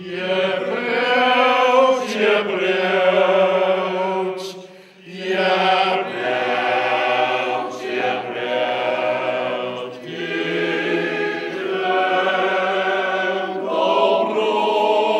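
A group of men singing together in long, held notes, with short breaks between phrases about five and ten seconds in.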